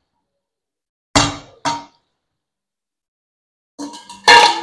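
Stainless steel bowl and spatula clanging against a stainless steel kadhai as boiled gunda fruits are tipped in: two clanks about a second in, then a cluster of knocks near the end, the loudest ringing briefly.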